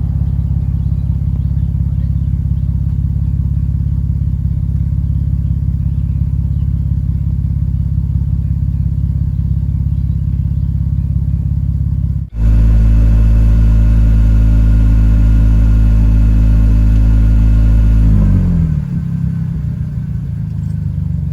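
Car engine running steadily during a battery jump-start. Just past halfway the sound breaks and comes back as a louder, steady hum. About five seconds later it slides down in pitch and settles.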